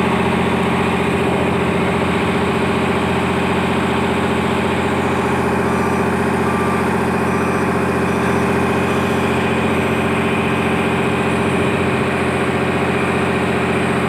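Heavy engine idling steadily at an even pitch, freshly repaired and running.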